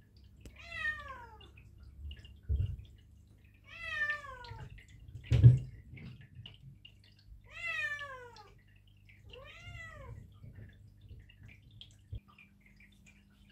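Perdoll (Persian–Ragdoll cross) kitten meowing four times, each call mostly falling in pitch: hunger cries from a kitten fasted before neutering surgery. Two thumps come between the calls, the louder one about five seconds in.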